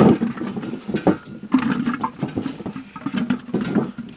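Sweet potatoes being handled: picked up off a steel tray and put into terracotta clay pots, with irregular small knocks, scrapes and rustling against the metal and the clay.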